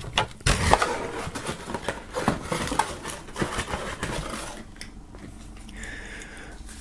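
Cardboard packaging and paper sleeves rustling and scraping against each other as box contents are lifted and moved by hand, with small knocks and clicks. The handling settles quieter after about four and a half seconds.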